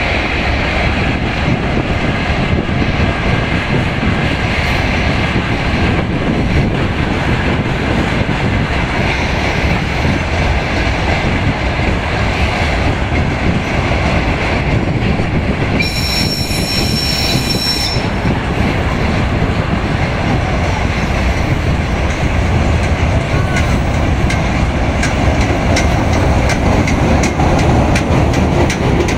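TU2 narrow-gauge diesel locomotive running as it pulls a train in, engine and wheels rumbling on the rails, growing a little louder as it draws near. About halfway through, a high-pitched tone sounds for about two seconds.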